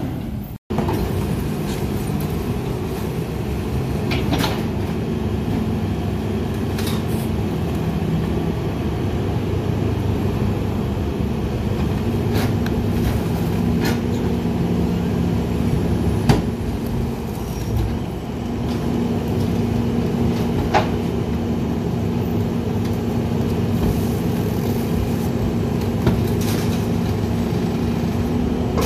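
Single-axle International MV garbage truck's diesel engine idling steadily, with occasional sharp clanks and knocks at the rear hopper.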